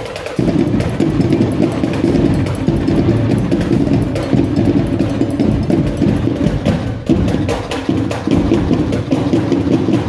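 Drumline of bass drums and snares playing a loud percussion cadence, easing off briefly about seven seconds in.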